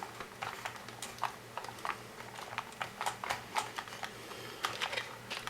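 Irregular light clicks and taps from hands handling small parts while positioning an IDE ribbon cable for mounting.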